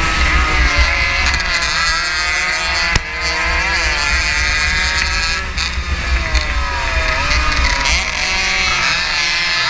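Onboard sound of a 115cc racing motorcycle engine at high revs, its pitch rising and falling again and again through the corners, with heavy wind rumble on the microphone. A single sharp knock about three seconds in.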